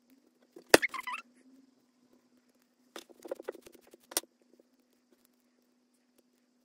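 Hands working a plastic fashion doll's hair while tying and tightening a knot in the bun: a sharp click with a short squeak right after it about a second in, then a run of small clicks and rustles ending in a sharp click about four seconds in.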